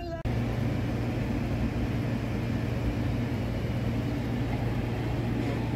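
Background music cuts off abruptly just after the start. A steady low vehicle-engine hum with a rushing noise behind it takes over.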